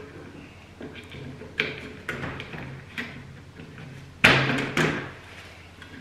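Wire strippers snapping shut and pulling on electrical cable at a metal switch back box: a few sharp clicks and knocks, the loudest a pair of snaps about four seconds in.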